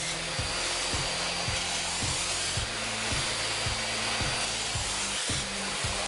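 Vacuum cleaner running steadily with a thin high whine, its velour-covered pet-hair brush nozzle pushed over a carpet and sucking up loose animal hair.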